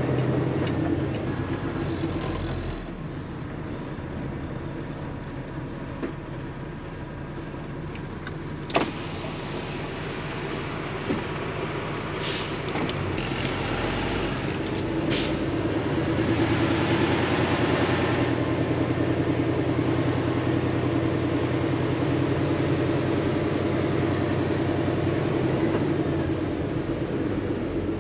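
Semi truck's diesel engine running, heard inside the cab. It quietens for a stretch and then builds again as the truck moves slowly. About nine seconds in there is a sharp click, and there are two short hisses of air, a few seconds apart.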